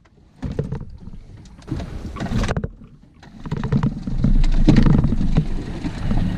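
Small Mercury outboard motor driving an aluminium fishing boat. It runs quieter for the first three seconds, then gets louder and steadier from about three and a half seconds in as the tiller throttle is opened.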